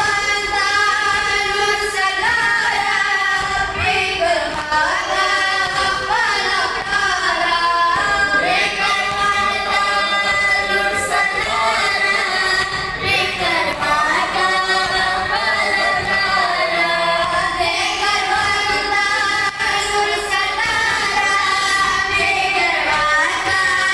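Boys' voices chanting a noha, a Shia mourning lament, together and unaccompanied, in a steady, continuous sung melody.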